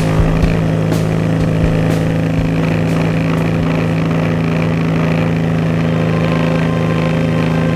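Petrol engine of a pressure-washing machine running steadily at a constant speed, a loud even drone with a few light clicks in the first couple of seconds.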